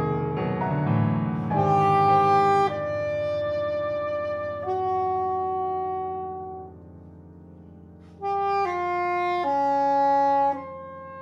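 Contemporary chamber music: a soprano saxophone plays long held notes over sustained piano sound. A little past halfway the music drops to a quiet held stretch, then the saxophone comes back in loudly with a string of held notes.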